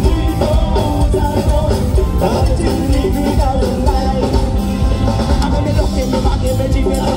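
Live pop band playing loud, with drums and bass to the fore, while two male singers sing into microphones, heard from the audience.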